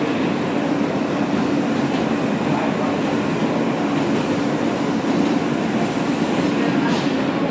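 Running noise inside an R143 subway car in motion: a steady rumble with a constant hum, as a train on the next track passes close alongside. There is one short sharp click near the end.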